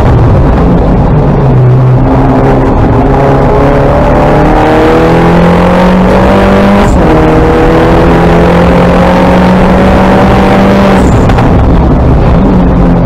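Engine of an R58 Mini John Cooper Works Coupe race car, a turbocharged four-cylinder, heard loud from inside the cabin under hard acceleration. Its pitch climbs, then drops sharply at upshifts about seven and eleven seconds in.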